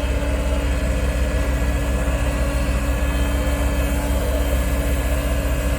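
Heavy diesel construction equipment running steadily, a deep pulsing engine rumble with a steady hum.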